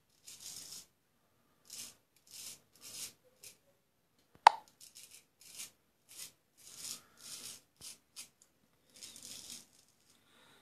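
Straight razor scraping through lathered beard stubble in a series of short, crisp strokes, over a dozen in all, cutting easily with no pressure. One sharp click sounds about four and a half seconds in.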